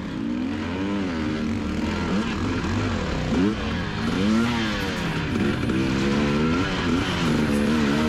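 Two-stroke enduro motorcycle engine heard from the rider's seat while riding through mud, its pitch rising and falling about once a second as the throttle is opened and closed.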